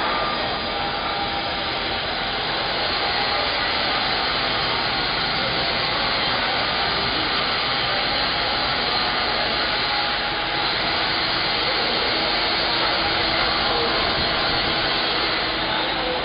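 CNC plasma cutter's torch arc hissing steadily as it cuts through sheet metal, one unbroken rushing noise.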